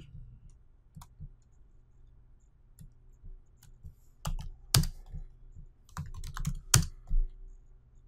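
Computer keyboard keystrokes: a few scattered clicks, then two quick flurries of typing about four and six seconds in.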